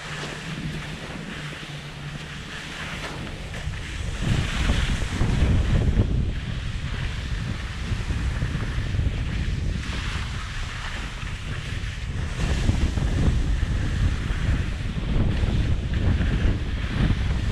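Wind buffeting a helmet camera's microphone on a fast ski descent, with skis hissing and scraping over snow in swells every few seconds as turns are made. It gets louder from about four seconds in.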